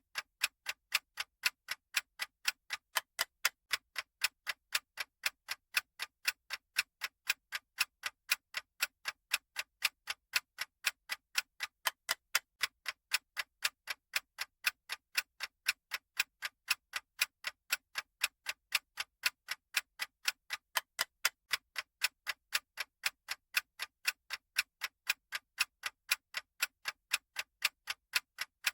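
Clock ticking sound effect: a steady tick-tock of sharp, light, evenly spaced clicks, alternating louder and softer, marking the running countdown.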